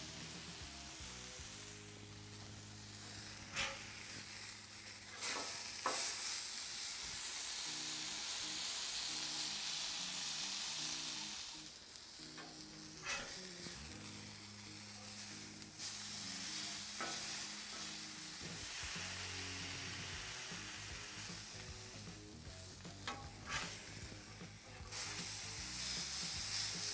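Steak searing on a Blackstone flat-top griddle: a steady sizzle, with a few sharp clicks and scrapes of a metal spatula as the steak is flipped. Low background music runs underneath.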